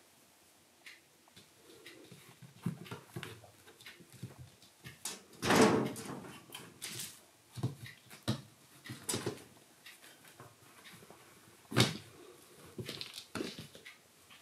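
Kittens playing: scattered soft thumps of paws and rustling of a fleece blanket as they pounce and scramble, with a louder scuffle a little before halfway and a sharp knock about three-quarters through.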